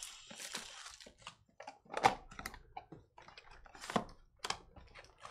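Irregular light clicks and taps from hands at work, with sharper ones about two and four seconds in.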